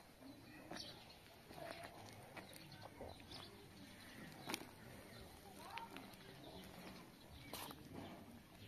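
Faint outdoor background with a few brief bird calls and scattered soft rustles and knocks, one a little louder about four and a half seconds in.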